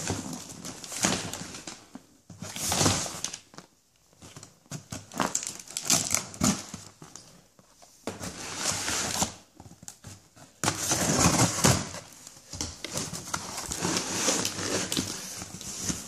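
Cardboard shipping box being opened and handled: irregular rustling, scraping and crinkling of the cardboard, in bursts with brief pauses, busier in the second half.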